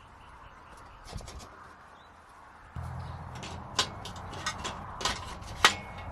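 A series of sharp clicks and knocks, with a low steady hum starting about three seconds in.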